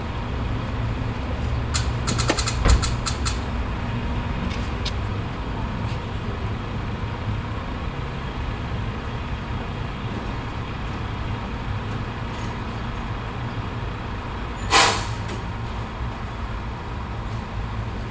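Gas station ambience: the steady low rumble of idling vehicle engines, with a quick run of clicks and a knock about two seconds in. About fifteen seconds in, a truck's air brake lets out one short, loud hiss.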